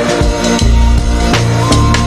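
Background music with a steady beat: a bass line, drum hits and sustained tones.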